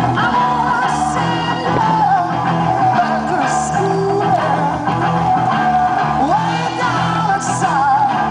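Rock music with a singing voice and guitar, with a few cymbal splashes.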